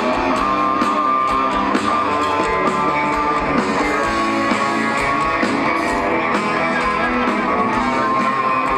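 Loud rock music with guitar, cutting in sharply at the start and holding an even level.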